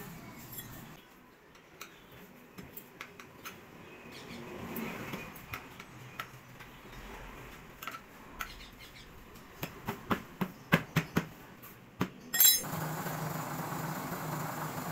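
Light metal clinks and ticks from a wire-spoked wheel being handled and trued on a tyre stand, with a quick run of sharp clicks about ten seconds in and a louder knock near the end, after which a steady low background noise sets in.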